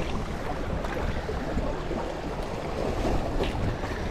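Wind buffeting the microphone over harbour water washing against a sandstone rock ledge, a steady rushing noise with no distinct events.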